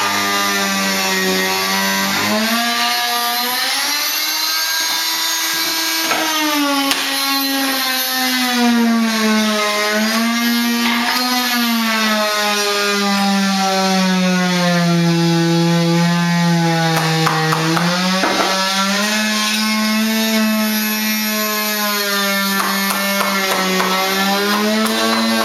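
Rockwell Sonicrafter oscillating multi-tool with a half-circle blade cutting through hardwood flooring: a steady buzzing whine whose pitch sags and recovers as the blade bites into the wood and eases off.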